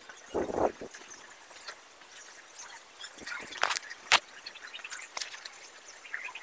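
Repeated high-pitched chirping trills from small animals outdoors, coming back about once a second. A brief low rustle comes about half a second in, and a few sharp clicks come a little before the middle, as the green screen cloth is handled.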